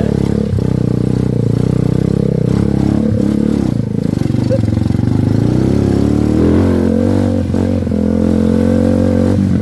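Honda Megapro single-cylinder four-stroke engine of a homebuilt trail motorcycle running under load off-road. Its pitch dips and rises a few times as the throttle is eased and opened again.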